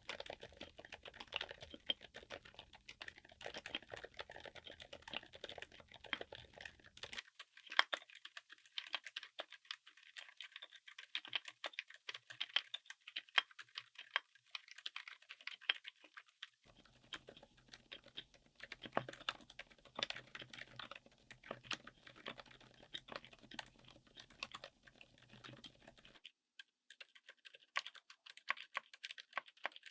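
Fast, continuous typing on a mechanical keyboard fitted with silent switches: a dense patter of soft, dampened keystrokes. The background and the tone of the keystrokes change abruptly at about 7, 17 and 26 seconds in.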